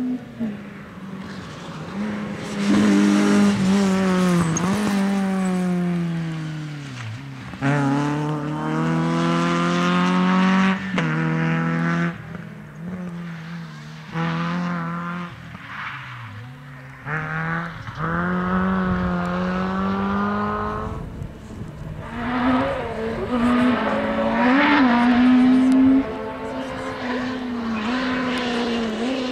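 Rally cars driven hard on a special stage, engines revving high with the pitch climbing and dropping several times as they shift gear, brake for corners and accelerate away.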